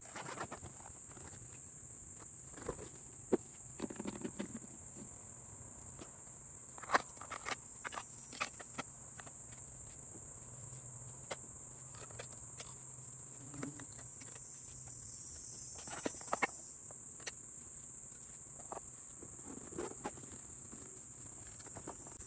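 Steady high-pitched insect chirring, with scattered short clicks and knocks as a wooden pochade box is opened and set up on a tripod.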